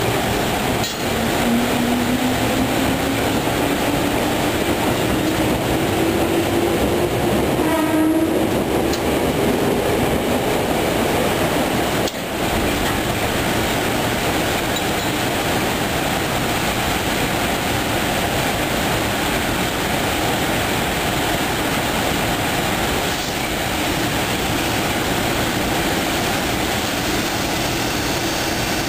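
Stationary EF210 electric locomotive running with a loud, steady mechanical noise. A whine rises slowly in pitch over the first several seconds, and there is a single knock about 12 seconds in.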